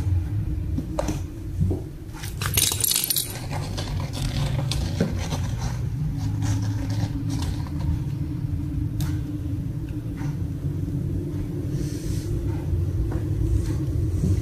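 Cat playing at a cardboard box and small toys on a tiled floor: scattered light scrapes and taps, with a burst of metallic jingling about two to three seconds in, over a steady low rumble.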